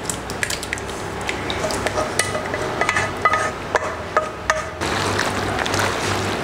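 Thick Bolognese sauce dropped from a pot into a plastic bowl of spaghetti, then a wooden spatula mixing it through the pasta, with wet splats and repeated light knocks against the bowl and pot.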